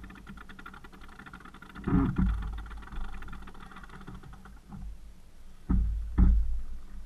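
A fast, even mechanical ticking that fades out about five seconds in. Low thumps of wind buffeting the microphone come about two seconds in and twice near the end, and are the loudest sounds.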